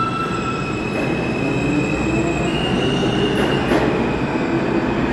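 An R160A subway train accelerating out of the station: the wheels rumble on the rails and the electric traction motors whine, stepping up in pitch as it picks up speed. A few clacks over rail joints come about three and a half seconds in.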